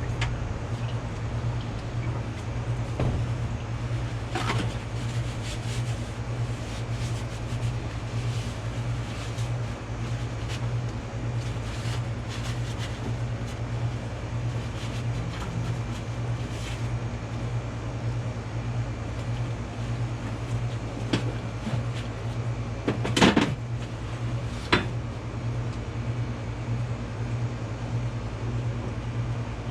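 A steady low mechanical hum with scattered clicks and knocks, the loudest about 23 and 25 seconds in.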